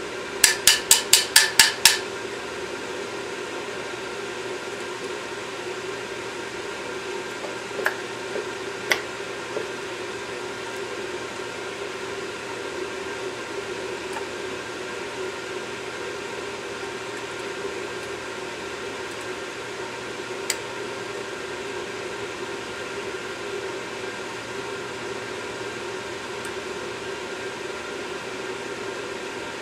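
Steady fan-like background hiss, with a quick run of about eight sharp metal taps in the first two seconds and a few single clicks later, from pliers and a pick working carbon off an EGR valve over a plastic basin.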